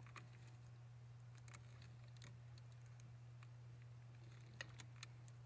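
Near silence over a steady low hum, with a handful of faint, short clicks and taps from gloved hands handling a rubber boost hose and its plastic fittings.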